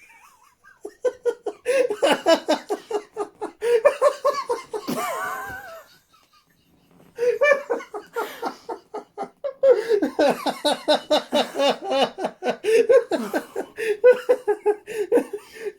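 People laughing hard in long, breathless fits of rapid pulsed laughter, breaking off briefly about six seconds in and starting up again.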